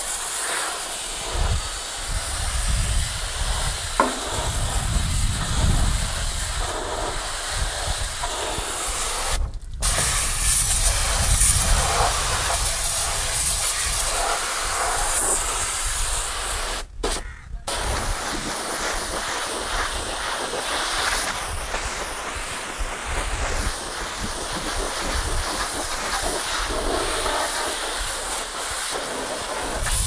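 High-pressure washer jet from an HTP pump spraying water against a truck's chassis and wheel arch: a steady hiss with a low rumble underneath. The sound cuts out briefly twice, near the tenth and the seventeenth second.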